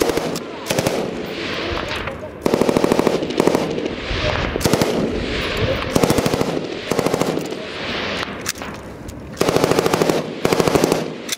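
Belt-fed light machine gun firing repeated bursts of automatic fire, each a rapid string of shots. Most bursts are short; a longer one of about a second comes about two and a half seconds in.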